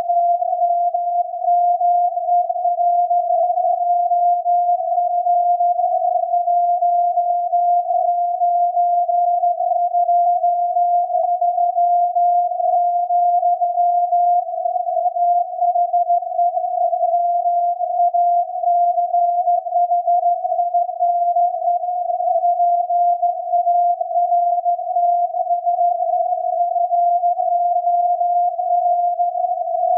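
SAQ Grimeton's 17.2 kHz VLF transmission from its Alexanderson alternator, received on a loop antenna and tuned down by an SDR to a continuous tone near 700 Hz. The tone is rough and wavering, its pitch shifting slightly around the centre.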